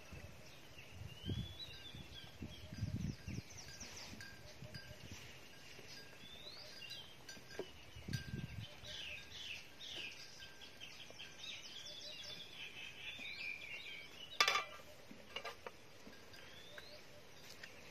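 Birds chirping and singing in many short rising and falling calls. A few soft low thuds come in the first few seconds and again around eight seconds in, and a sharp knock about fourteen and a half seconds in.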